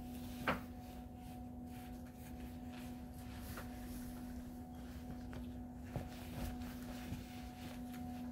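Faint rustling and brushing of a cotton hoodie being pulled on over the head, with a few short handling sounds, over a steady low hum.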